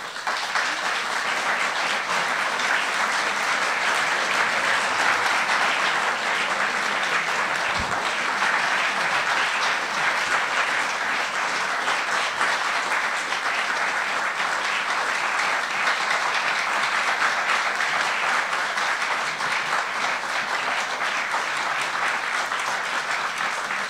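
Audience applauding after a reading, a dense steady clapping that starts abruptly and keeps on without letting up.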